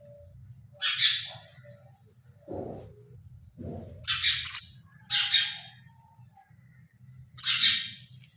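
Nestling birds' begging calls: four short, raspy, high-pitched bursts of chirping, with a thin held whistle near the end. Two brief lower-pitched sounds come between the first and second bursts, over a faint low hum.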